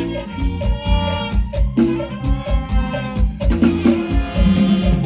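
Isan band music in an instrumental passage between sung lines: a steady, fast drum beat under sustained melodic instrument lines, with no singing.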